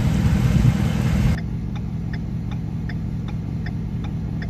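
For the first second and a half, loud rushing wind on the microphone. Then, after a cut, a truck engine idling steadily with its indicator ticking about two and a half times a second, heard from inside the cab.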